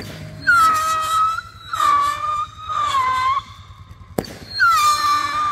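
Whistling fireworks: four shrill whistles, each about a second long, dipping briefly in pitch and then holding steady. Sharp bangs come at the very start and about four seconds in.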